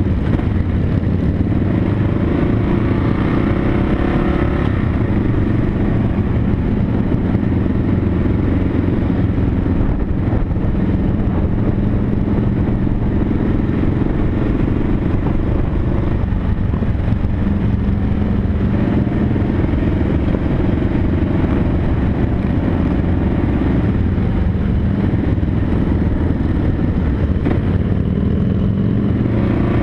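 Motorcycle engine running under way, heard from the bike carrying the camera, with a steady low rumble whose pitch steps up and down a few times as the speed changes.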